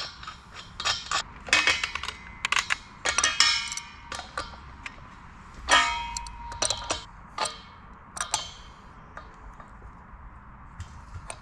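Adjustable wrench clinking and clanking against the brass fitting on a propane tank valve while the reverse-threaded torch hose connection is tightened. The sound is a string of sharp metallic taps with a short ring, busiest in the first few seconds and thinning out after about nine seconds.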